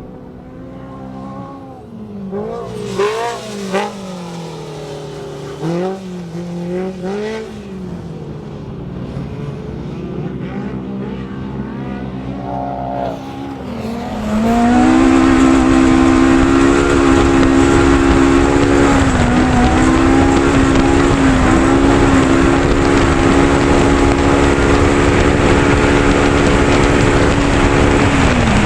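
Race UTV engine rising and falling in pitch with the throttle. About halfway through it gets much louder and holds a steady high pitch over a loud rushing noise, then drops in pitch near the end.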